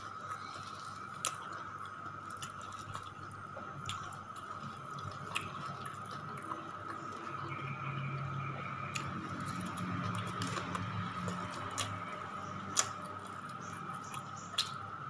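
A person chewing a mouthful of rice and fried food with the mouth closed, making scattered wet clicks and smacks, over a steady high-pitched whine.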